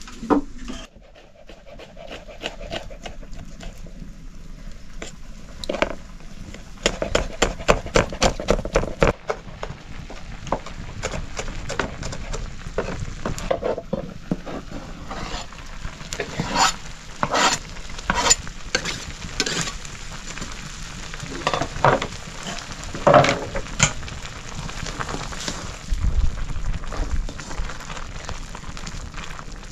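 Food frying in a pan while a metal utensil stirs and knocks against it: a steady sizzle with a quick run of clicks about seven seconds in, then scattered louder knocks.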